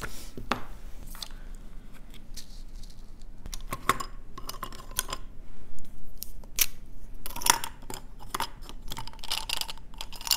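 Scattered light clicks, taps and small clinks of nail-art tools and little containers being handled and set down, a few with a short ringing tone, coming in clusters about four seconds in and again near the end.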